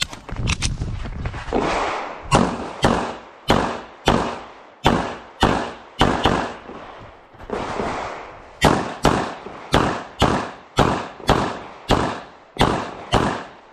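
Rapid pistol fire from a Bul SAS II Open-division pistol during an IPSC stage: a string of about thirty sharp shots, often a third to half a second apart, with a few brief pauses between groups. Each shot is followed by a short echo.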